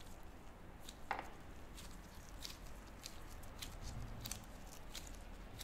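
Faint close-up handling sounds of gloved fingers pressing and kneading soft wagashi dough: scattered small clicks and squishes, with one brief louder squeak or tap about a second in, over a low steady room hum.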